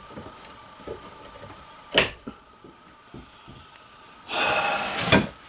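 Rifle bolt being worked by hand: a sharp metallic click about two seconds in, then near the end a short sliding, scraping stroke of the bolt that ends in another click.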